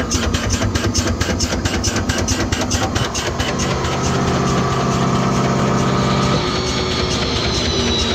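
An engine running at a steady idle with an even pulse of about five beats a second. A steady hum comes in about three and a half seconds in and cuts off near the six-second mark, and a high, slightly falling whine starts near the end.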